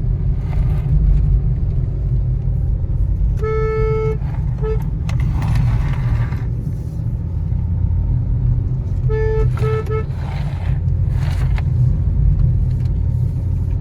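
Car engine and road noise, a steady low rumble, as the car climbs a steep hill road. A car horn sounds in two groups: a long toot and a short one about three and a half seconds in, then three quick toots about nine seconds in.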